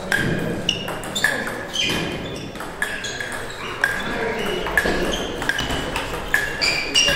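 Table tennis ball being struck back and forth by bats and bouncing on the table in a rally. It makes a steady run of sharp, ringing clicks, about two a second.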